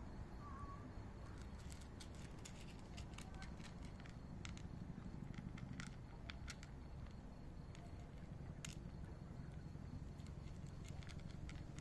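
A cat crunching dry kibble: a scatter of short, crisp crunches at an uneven pace over a low, steady background rumble.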